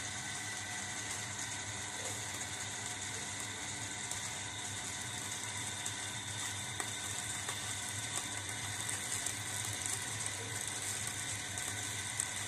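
Electric liquid mixer running steadily, its motor and drive humming with several steady tones while the stirring shaft churns liquid in a plastic drum. Light crackles and ticks grow more frequent in the second half.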